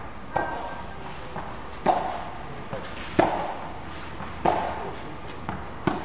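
Tennis rally: five sharp racket-on-ball strikes about every 1.3 s, each shortly preceded by a softer bounce of the ball on the court, with a short echo after each hit from the indoor hall.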